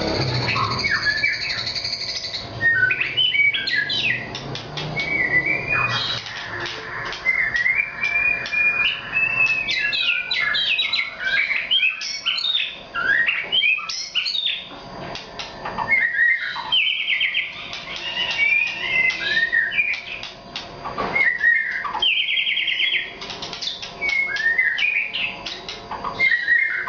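White-rumped shama of the Nias race singing continuously: a long, varied song of clear whistles and rising and falling notes, broken several times by short, rapid rattling trills.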